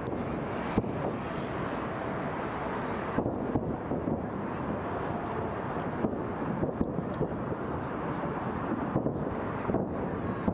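Fireworks going off in sharp bangs and cracks at irregular intervals, over steady wind noise on the microphone.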